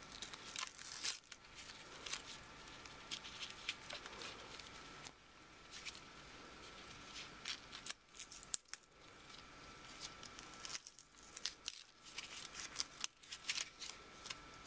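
Paper backing being peeled and pulled off an adhesive film dressing, with gloved hands handling it: many short, irregular crackles and crinkles.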